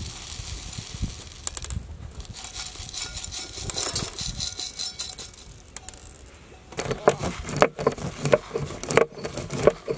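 Dry black peppercorns pour from a steel tumbler onto a stone grinding slab with a rattling patter. From about seven seconds in, a run of sharp clicks and knocks follows as the pepper is worked on the stone.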